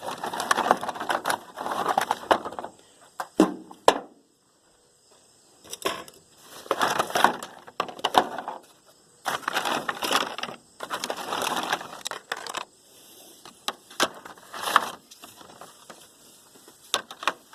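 Objects being rummaged through in a box of toys and odds and ends, clattering and rustling in irregular bursts with sharp clicks and knocks. There is a short quiet pause about four seconds in.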